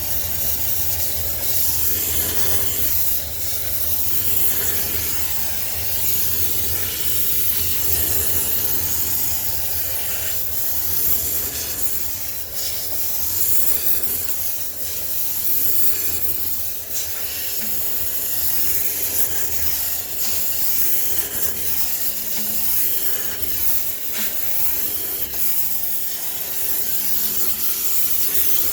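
High-pressure steam cleaner hissing steadily as its jet sterilises a sneaker washing machine, with a low hum underneath.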